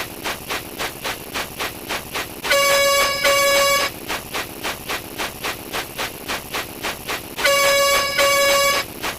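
A looping sound effect: a two-part horn blast, two long honks back to back, heard about 2.5 s in and again about five seconds later. Between the blasts runs a steady clicking, about three clicks a second.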